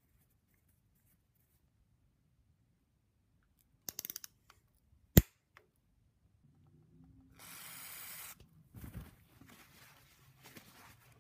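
A few quick ratcheting clicks, then one sharp metallic click: a click-type torque wrench reaching 55 inch-pounds on a stainless valve-cover stud. After a hiss of about a second, a shop rag rubs and wipes the aluminum cylinder head.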